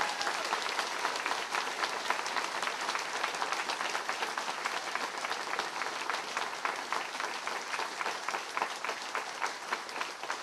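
Large crowd applauding: a dense, steady patter of many hands clapping.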